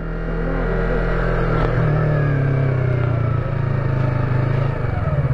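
Yamaha R25 motorcycle's parallel-twin engine running at low revs as the bike rolls slowly. About five seconds in, the note changes to an uneven pulsing beat.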